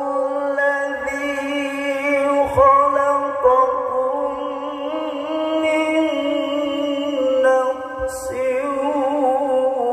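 A man reciting the Qur'an in the melodic tilawah style, holding long ornamented notes with a wavering voice, with a short break for breath about eight seconds in.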